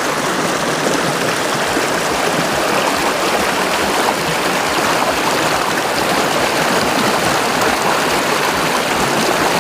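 Mountain stream rushing steadily over rocks, a constant, fairly loud water noise.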